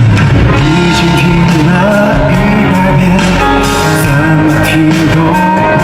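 A male vocalist singing live with a pop-rock band, loud and steady.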